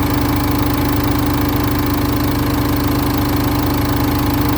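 Nissan Juke engine idling steadily, with a constant hum over an even low pulse.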